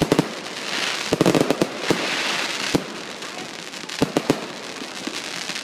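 Fireworks going off in a fan of rising comets: a run of sharp launch pops and small bangs over a hissing crackle. There is a dense cluster of pops about a second in and another few near four seconds.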